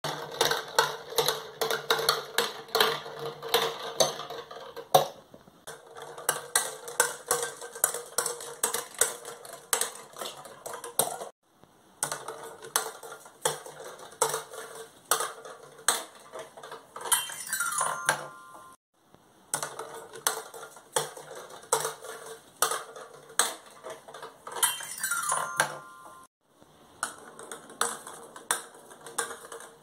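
Hollow plastic balls rolling and rattling around the plastic spiral tiers of a ball-drop tower toy: a rapid stream of small clicks and clatters that stops and starts again several times. Twice, near the middle and later on, a short run of bright pitched notes comes as a ball runs down the metal bars of a toy xylophone.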